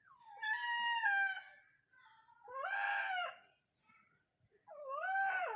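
An animal calling three times: three drawn-out, wailing cries of about a second each, the first sliding down in pitch.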